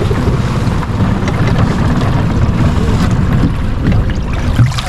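A boat's motor running steadily under way, with wind rumbling on the microphone.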